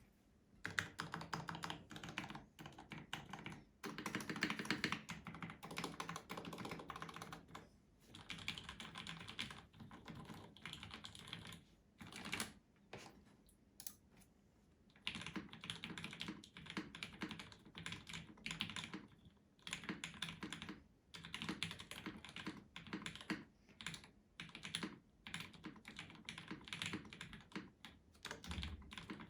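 Typing on a gaff. 60 prototype mechanical keyboard with Gateron Black Ink linear switches lubed with Krytox 205g0: fast, dense runs of keystrokes with brief pauses, the longest about halfway through.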